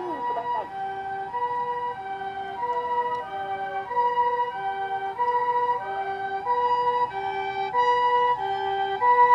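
Japanese ambulance's two-tone "pee-po" siren, switching between a high and a low tone about once a second, with another emergency vehicle's wailing siren gliding down and up beneath it. The sirens grow louder toward the end as the vehicles approach.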